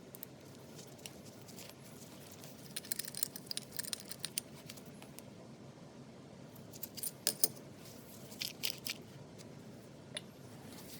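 Small metal parts clinking and clicking against each other as they are handled, in two short clusters of light taps with a single click near the end.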